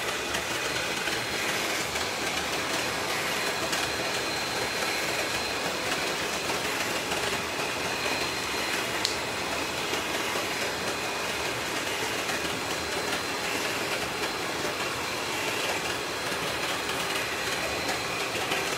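A steady, even rushing noise with a faint thin high whine running through it.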